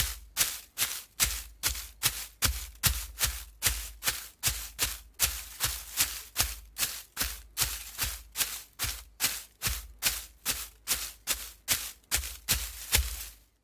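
Running footsteps of shoes on forest ground of dirt and gravel, in a steady rhythm of about three steps a second.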